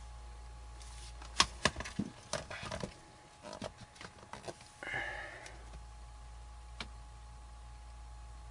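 Plastic laptop case parts clicking and tapping as they are handled and pried during disassembly: a run of sharp clicks in the first half, a short scrape around five seconds in, and one last click near the end, over a steady low hum.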